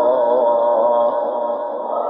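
Male Quran reciter holding a long melodic note in mujawwad recitation, the pitch wavering in ornament; the note eases off a little past the middle and the voice swells again near the end.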